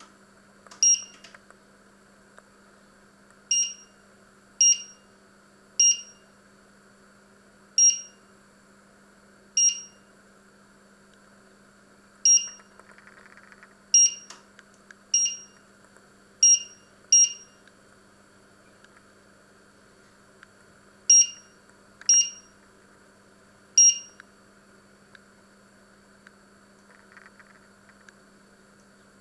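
Touch-control panel of a glass-ceramic hob beeping once for each key press as the cooking zone's power level and timer are set: a short high beep, about fourteen in irregular runs, with a pause of a few seconds past the middle. A faint low steady hum runs underneath.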